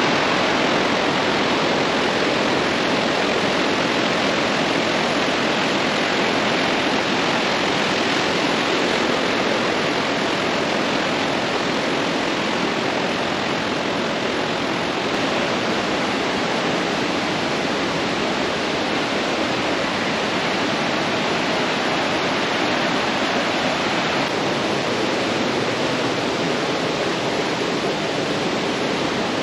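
Swollen mountain river in heavy flow: a full, steady rush of tumbling water that holds even throughout.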